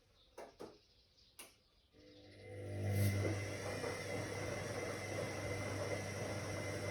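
Whirlpool AWOC 8283 washing machine: a few faint clicks, then about two seconds in its motor starts up, swelling within a second to a steady running hum with a thin high whine and a rushing noise.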